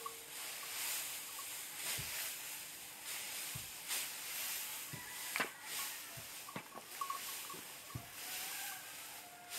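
Dull thuds from a wooden stick beating harvested crop on the ground, roughly every one to two seconds: hand threshing to knock the grain loose. Steady rustling of dry straw runs underneath.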